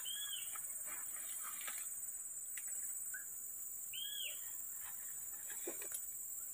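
Two short whistled animal calls, each rising then falling, about four seconds apart, with a faint chirp between them, over a steady high insect buzz. Leaves and fern fronds rustle and crackle now and then as they are picked by hand.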